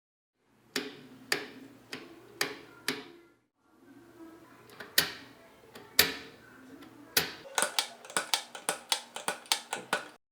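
Facit typewriter keys being struck, each typebar landing with a sharp clack: a few slow strikes, a short pause, two louder ones, then a quicker run of about four strikes a second.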